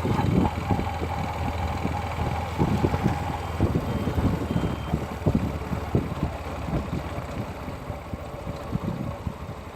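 Yamaha YBR 125's single-cylinder four-stroke engine running, with an irregular clattering over a steady low hum. It is the noise that the owner blames on a botched service and that Yamaha calls the bike's normal sound.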